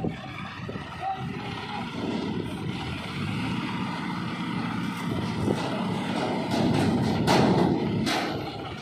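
Diesel engines of ACE pick-and-carry mobile cranes running under load, a steady drone that grows louder in the last few seconds. Two short, sharp noises cut in near the end.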